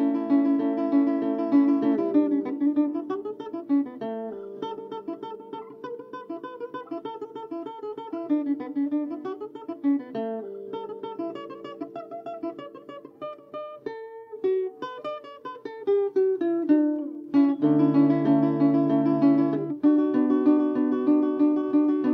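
Acoustic guitar music: strummed chords at the start and again near the end, with quieter, quicker picked single notes in between.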